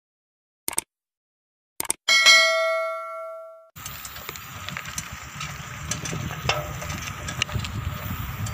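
Click sound effects and a bell ding from a subscribe-button animation, the bell ringing and fading out over about a second and a half. From about four seconds in, steady wind and road rumble with scattered small clicks and rattles from riding a bicycle.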